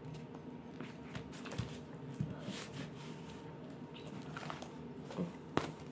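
Sheet of wallpaper rustling and crackling as hands lay it on glued cardboard and press it flat: scattered soft crackles and taps, the sharpest near the end, over a steady low hum.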